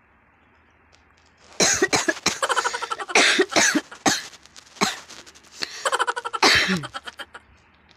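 A person's voice in a run of short, loud, broken bursts, starting about one and a half seconds in and lasting about five seconds.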